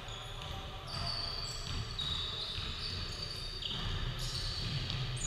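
Basketball game on a hardwood gym court: the ball bouncing and players' feet moving, with high squeaky tones running through.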